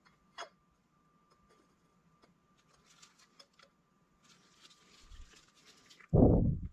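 Turbocharger parts being handled in gloved hands: a light click, faint rustling and scraping of metal parts, then a dull thud about six seconds in as the compressor housing with its centre housing is set down on the plastic parts tray.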